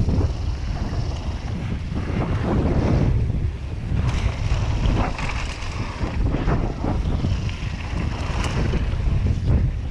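Wind buffeting an action camera's microphone over the rumble of a mountain bike rolling fast on a packed-dirt trail, with a few short knocks and rattles from the bike over bumps.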